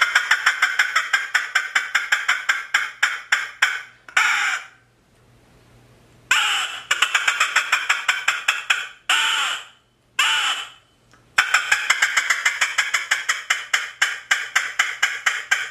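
Squirrel bark imitated on a single-reed coon squaller call. Air is sucked in through the reed in quick short bursts, with both hands cupped over the end to set the cadence. The result is three long runs of rapid sharp barks, about five or six a second, broken by a few longer drawn-out notes.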